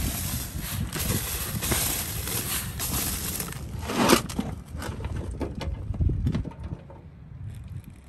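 Sandy soil poured from a plastic bucket into a small hole, a steady gritty pour. About four seconds in, a shovel blade scrapes loudly into a pile of dirt on a steel plate, followed by quieter scrapes and knocks.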